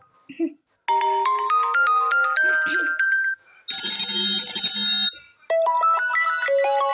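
Huawei P60 ringtone: a quick melody of stepping electronic notes, broken about halfway by a bright, shimmering chime lasting over a second, then another run of stepping notes.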